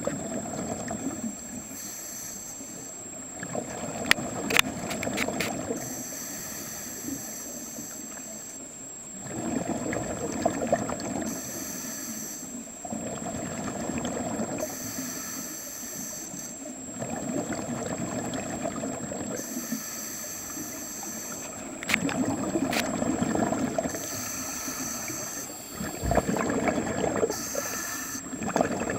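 Scuba regulator breathing heard underwater, a breath every four to five seconds. Each gurgling burst of exhaled bubbles alternates with a shorter hiss of inhalation. A steady faint high whine runs underneath, with a few sharp clicks.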